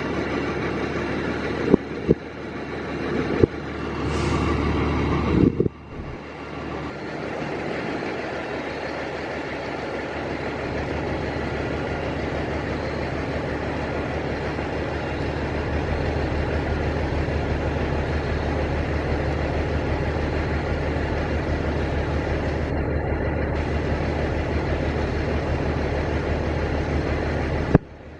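A vehicle engine running steadily, with two sharp clicks in the first few seconds and a brief drop-out about six seconds in.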